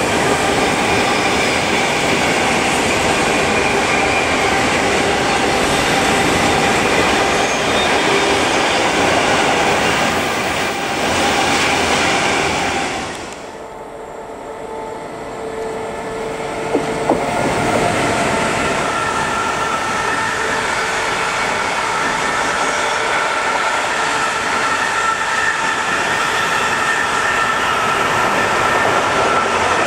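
Freight wagons rolling past close by on electrified double track: first a long train of tank wagons with steady wheel and rail noise. It fades about 13 seconds in, then a container train passes with a couple of clicks and steady high ringing tones from its wheels.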